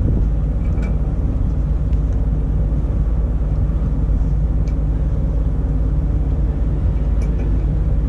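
Semi truck's diesel engine idling steadily, a low even rumble, with a few faint metallic clinks of tie-down chain being wrapped around a load binder.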